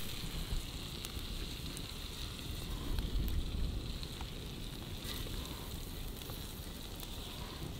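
Hot cast-iron griddle sizzling faintly and steadily, with scattered small crackles and ticks.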